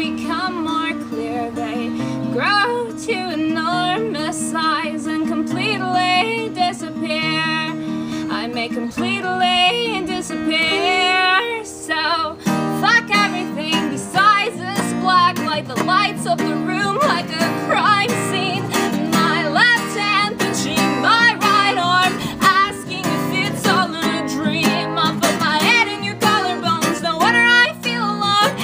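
A woman singing a solo song with vibrato while strumming chords on an acoustic guitar.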